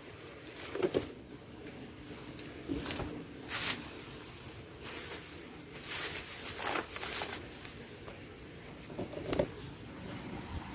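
Water sloshing and splashing in irregular bursts as a person wades into a fish pond.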